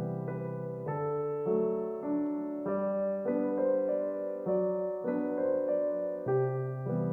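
Background music: a slow, gentle keyboard tune in a piano sound, held chords changing note every half second or so.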